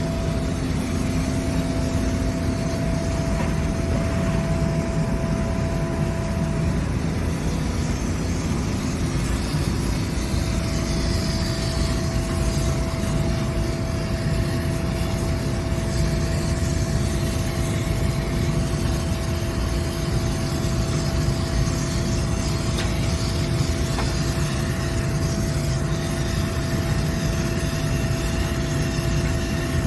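Steady machinery running: a continuous low rumble with a few steady hum tones over it, one of which drops out for a few seconds about a quarter of the way in.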